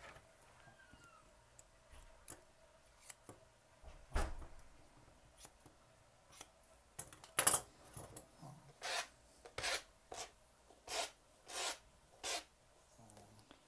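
Short, crisp strokes of grooming shears and a brush through a Maltese's long, silky coat while it is trimmed and brushed out. They are scattered at first, then come roughly one every second in the second half.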